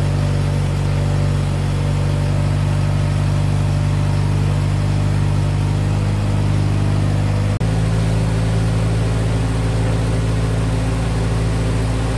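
Ford GPW jeep's four-cylinder flathead engine idling steadily. The sound cuts out for an instant about seven and a half seconds in, then the idle carries on.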